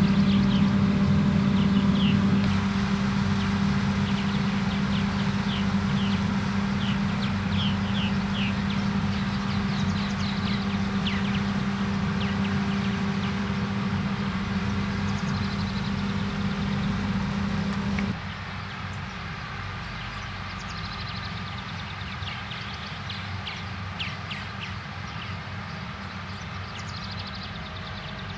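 Farm machinery engine running steadily with a low hum, with short high chirps throughout. The sound drops in level suddenly about 18 seconds in.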